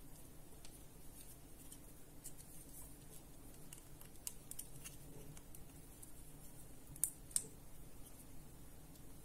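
Faint clicks and plastic handling of a small COB LED keychain work light and its USB-C cable plug, with two sharper clicks a fraction of a second apart about seven seconds in as the light's button is pressed.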